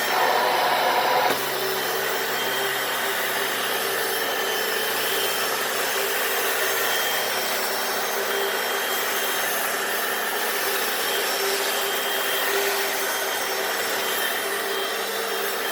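Hoover FloorMate wet floor cleaner running steadily, its suction motor and brush rolls scrubbing the concrete floor, with a brief louder stretch in the first second or so.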